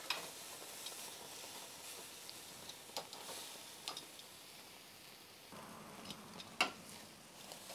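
Beef steaks sizzling on the infrared sear burner of a Napoleon gas grill, a steady hiss that swells a little past the middle. Metal tongs click sharply against the stainless grate a few times as the meat is turned, the loudest click near the end.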